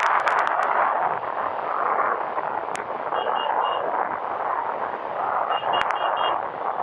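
Wind rushing over the microphone of a moving motorcycle in traffic. Short high beeps come in two quick runs, three about three seconds in and four near the end.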